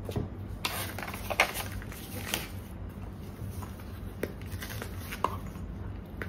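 Handling noise from a paper certificate and a soft fabric carrying case: irregular rustles and a few light clicks and knocks as a handheld light meter is lifted out of the case.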